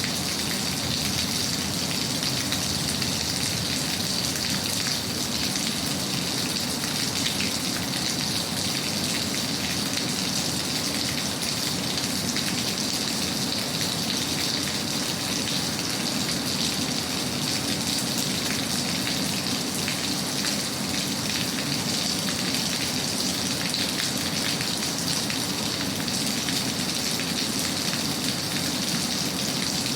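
Steady, unchanging rain falling: a dense patter of raindrops on a surface.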